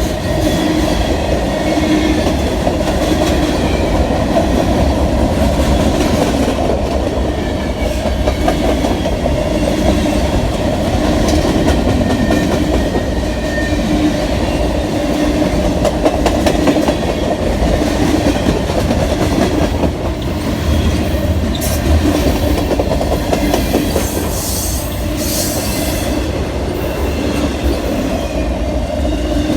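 Freight train cars rolling steadily past, wheels clattering over the rail joints, with occasional high-pitched wheel squeal, strongest a few seconds before the end.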